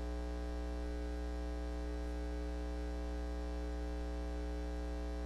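Steady electrical mains hum: a low drone with a thin buzz of overtones above it, unchanging throughout.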